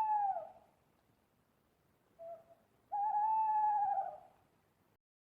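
Owl hooting: a long hoot trails off and falls in pitch just after the start, then a short lower note about two seconds in, then a long wavering hoot about three seconds in that drops at its end.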